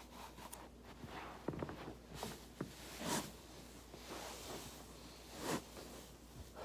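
Body working over a foam roller: clothing and foam rub in several short strokes, the strongest about three and five and a half seconds in, with a few small sharp clicks.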